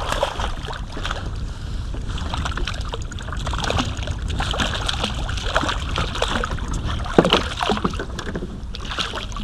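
A small hooked fish splashing and thrashing at the water's surface as it is reeled in, in irregular bursts with a sharper splash about seven seconds in. Wind buffets the microphone throughout.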